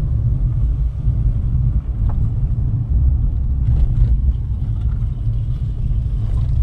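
Steady low rumble of a moving vehicle, with a few faint knocks about four seconds in.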